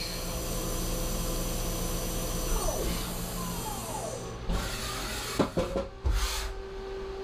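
CNC lathe running with a steady hum, with a couple of short falling whines about two and a half seconds in. From about four and a half seconds there is a string of sharp clunks and clicks as the sub spindle retracts and the tool turret moves.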